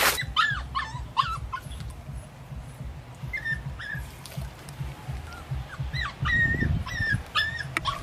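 A puppy whimpering and yipping in short, high-pitched cries: a quick run near the start, a few more around the middle and another run near the end. A brief low rumbling noise comes a little after six seconds in.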